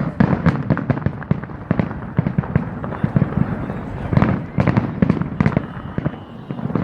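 Aerial fireworks going off in rapid succession: a dense run of sharp bangs and crackles with deep booms, thickest right at the start, around two seconds in, and again about four to five seconds in, heard from the crowd like thunder.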